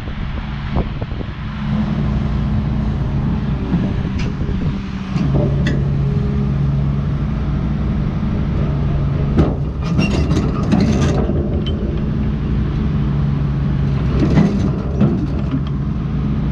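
A tracked excavator's diesel engine running, settling into a heavier, stronger note about five seconds in, with metallic clanks and knocks around the middle and again near the end.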